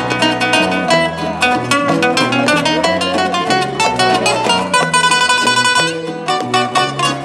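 Instrumental passage of Peruvian música criolla played live: an acoustic guitar picking quick melodic runs over a walking electric bass line, with bongos keeping the rhythm.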